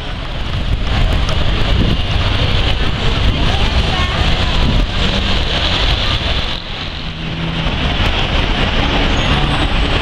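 Heavy city-centre traffic at a busy intersection: city buses and cars running through, giving a dense, steady din of engines and tyres that dips briefly about two-thirds of the way through.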